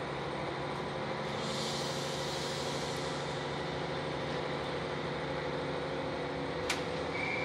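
Diesel railcar engine running under load as the train pulls away, heard from inside the car as a steady low hum with a hiss about a second and a half in. A single sharp click near the end, where the engine note changes.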